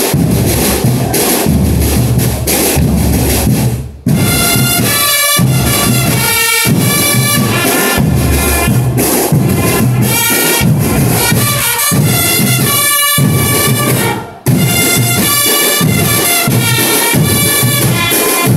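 Marching band playing a march: bass drums and snare drums beating, joined about four seconds in by a brass melody over the drums, with a brief break in the playing around fourteen seconds in.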